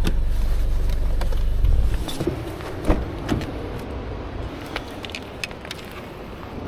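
A car engine's low rumble that cuts off about two seconds in, followed by a few scattered clicks and knocks.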